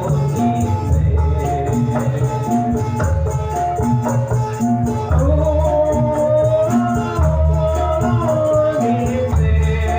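Jathilan gamelan music: short repeated metallophone notes over heavy low drum beats and shaken rattles. A singing line glides through the middle.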